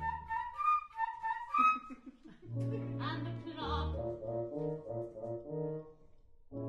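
Orchestra playing an instrumental passage of operetta accompaniment. First comes a quick figure of short, detached high notes, then fuller held chords over a stepping bass line, dropping away just before the end.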